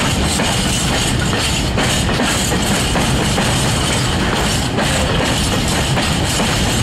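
A freight train of empty open coal wagons rolling past close by: a loud, continuous rapid clatter of wheels on the rails, with the hollow wagon bodies rattling.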